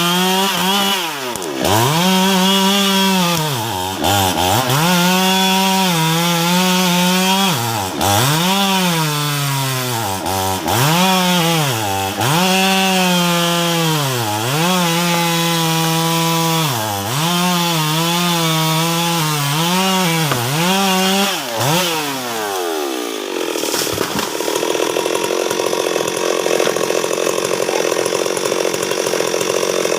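Stihl MS 382 two-stroke chainsaw cutting into a tree trunk. Its revs sag and recover over and over as the chain bites the wood. About 22 seconds in, the throttle is released and the revs fall away to a rough idle.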